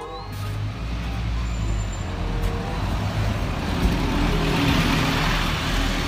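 Scania city bus pulling away from a stop: a steady low engine drone with a broad hiss that builds from about three seconds in.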